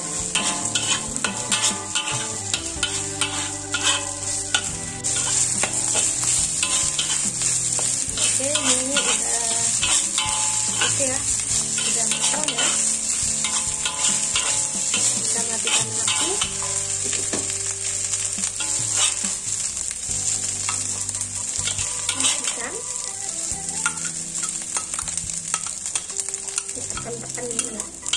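Fried rice sizzling in a wok as a metal spatula stirs and tosses it, with a steady frying hiss and frequent clicks and scrapes of the spatula against the wok.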